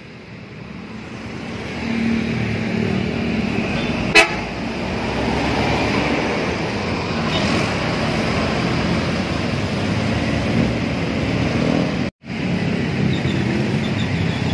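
Large intercity coach's engine running as it pulls past at low speed, with road traffic around it and a single short horn toot about four seconds in. The sound cuts out for a moment near the end.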